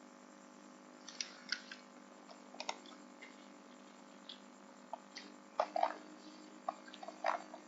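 Irregular clicking of a computer mouse and keyboard in use: single clicks and short runs of two or three, over a faint steady hum.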